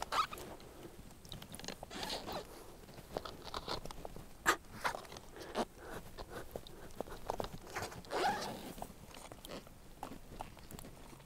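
Landing net being worked against the uneven bottom of shallow water, its frame and mesh scraping and knocking with small sloshes: irregular crunching scrapes and sharp clicks as it is pressed down to sit flat over a crab's hiding place.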